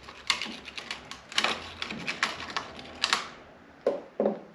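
Irregular light clicking and clattering of small hard parts being handled, typical of an old snowmobile fuel pickup, hose and clamps being turned over in the hands; a few louder clacks in the first three seconds, then it quiets.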